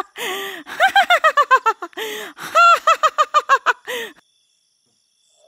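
A witch's high-pitched cackling laugh in rapid, evenly repeated bursts, broken by two sharp, noisy in-breaths, stopping about four seconds in.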